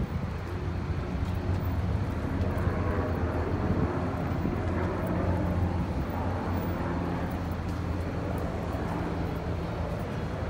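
Steady low mechanical hum, like a running engine, under a constant rushing outdoor noise.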